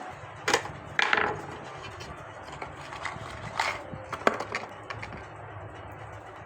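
Several sharp knocks and clicks of hard objects being handled, the loudest two in the first second or so and a few more around the middle, over a steady low hum.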